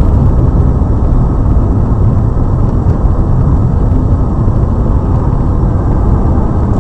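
Steady low road and engine rumble of a moving car, heard by its dashboard camera.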